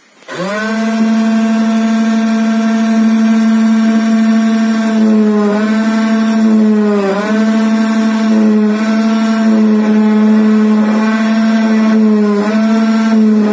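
CNC key-cutting machine's spindle spinning up and then running with a steady pitched whine while its cutter mills the pin cuts into an ABUS 4000 key blank. The pitch sags briefly a few times as the cutter bites in under load.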